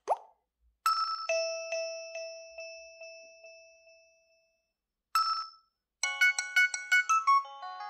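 Nokia 3210 4G (2024) mobile phone playing its ringtones one after another. A chime-like tone whose notes ring and slowly die away is followed by a short snippet, and then a fast, busy melodic ringtone starts about six seconds in.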